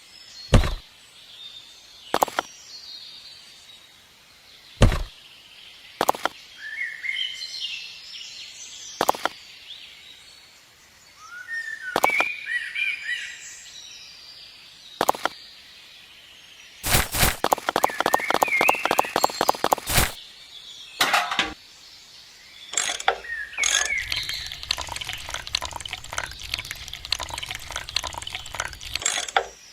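Birds chirping, with sharp knocks and clicks at irregular intervals. About halfway through comes a few-second run of rapid clicking. Near the end there is fast ticking over a low hum.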